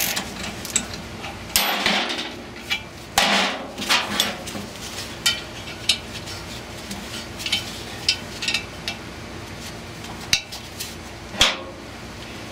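Metal hand tools clinking and knocking on a steel puller clamped to a squirrel cage blower's hub as the puller is worked to draw the wheel off the motor shaft. Scattered sharp clinks, with a few louder knocks, over a faint steady hum.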